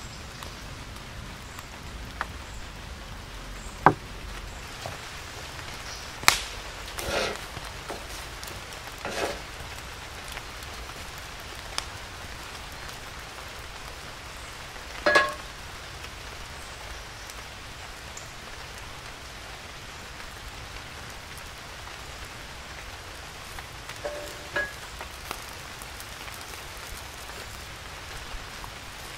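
Wood fire burning in an open fire pit: a steady hiss with sharp crackles and pops from the burning logs, the loudest about 4, 6 and 15 seconds in.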